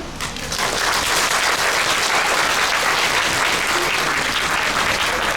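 Audience applauding: dense clapping that starts right after the final notes of a marimba piece and carries on steadily.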